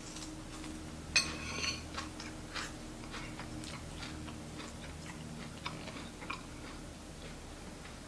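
Light clicks and knocks of small objects being handled, with one loud ringing clink about a second in, over a steady low hum.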